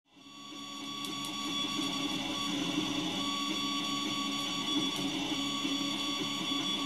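Anycubic i3 Mega 3D printer running, a steady mix of held whining tones with a wavering lower hum, fading in over the first second or so.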